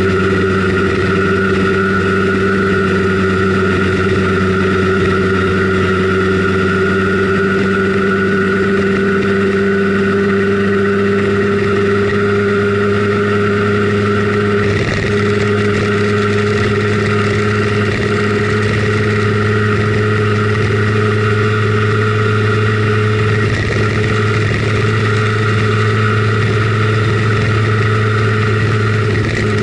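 Simson Schwalbe KR51/2 scooter's 50 cc single-cylinder two-stroke engine running steadily under way, heard from on board. Its pitch creeps up slightly, with a brief dip about halfway through and another about two-thirds of the way.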